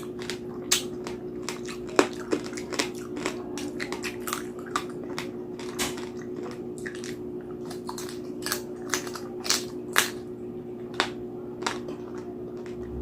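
Crispy roast pig skin (lechon) being bitten and chewed close to the microphone: many sharp, irregular crunches.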